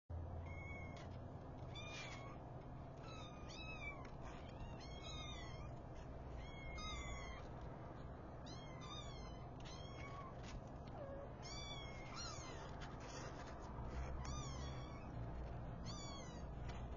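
Young kittens mewing: short high-pitched mews that fall in pitch, about one a second, over a low steady hum.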